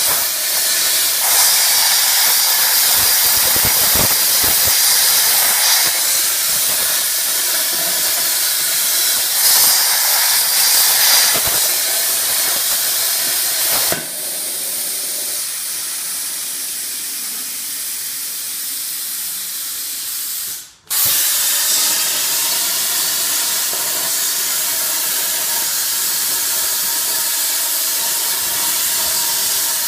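CNC plasma cutter torch running, a loud steady hiss of the arc and its air jet. The hiss changes tone and gets a little quieter about halfway through, breaks off for an instant, then carries on.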